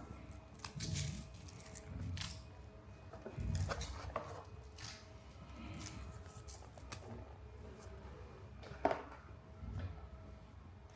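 Irregular handling noises: scattered light clicks and rustles with soft low thumps, the loudest a sharp click near the end, over faint background music.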